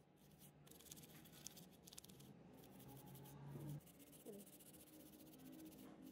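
Faint, rapid scratching of toothbrush bristles scrubbing a cassette player's circuit board.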